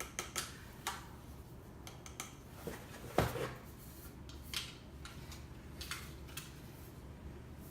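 Handling sounds of an airsoft M4 rifle and its packaging: scattered light clicks, taps and rubbing, with one louder knock about three seconds in.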